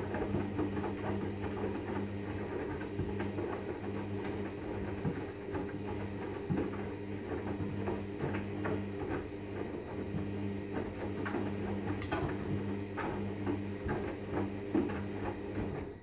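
Hoover Vision front-loading washing machine tumbling its load in the main wash of a synthetics 30°C cycle: a steady motor hum with water sloshing and clothes knocking in the drum, cutting out at the very end as the drum stops.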